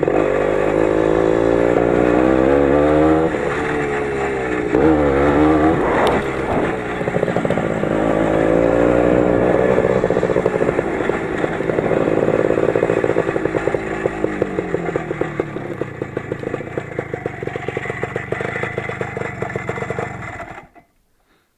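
20 hp Lider 3.221 motorcycle engine running while riding, its revs rising and falling with the throttle. The engine gets quieter over the last several seconds, then the sound cuts off suddenly near the end.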